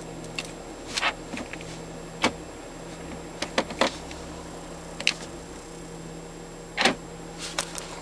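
BMW X5 electronic joystick gear selector clicking as it is pushed and pulled through its gear positions, about seven separate clicks a second or so apart, the loudest near the end, over a steady low hum.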